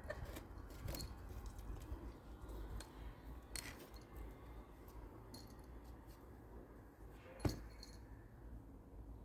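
Scattered light clicks and small jingling rattles, with one sharp knock about seven and a half seconds in, over a steady low hum.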